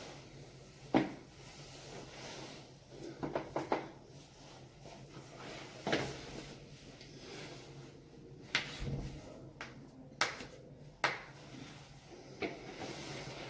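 Sharp pops of a person cracking their own neck and back joints, coming singly with pauses between. About three seconds in, a quick run of four or five pops comes close together.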